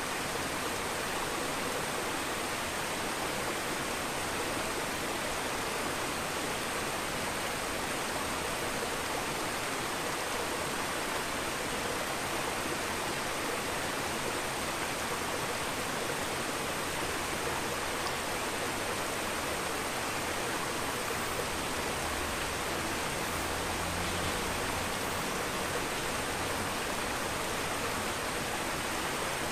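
Steady, even rushing of aquarium water, with a curtain of fine air bubbles rising through the tank, and a faint high tone throughout.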